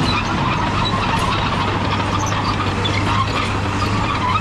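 Diesel engine of heavy earthmoving equipment running steadily with a constant low drone, and a few light squeaks over it.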